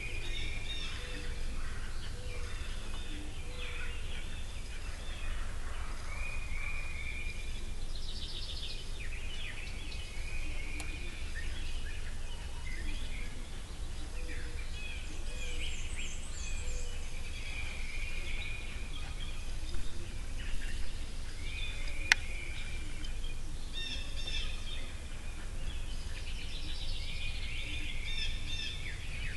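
Several songbirds calling and singing in short trills and chirps, over a steady low rumble. A single sharp click sounds about three quarters of the way through.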